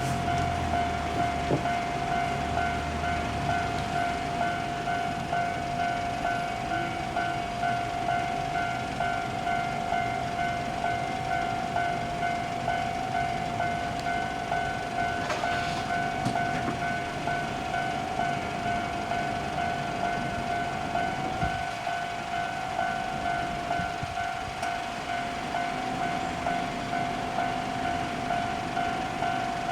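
Japanese railway level-crossing warning bell ringing without a break, its electronic ding pulsing at an even rhythm, with a low rumble of passing traffic or a train fading in the first few seconds.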